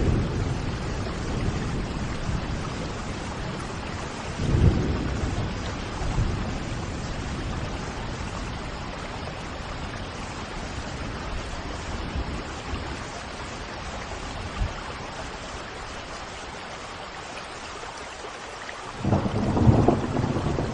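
Steady rain with low rumbles of thunder: a short one about four seconds in and a longer, louder one near the end.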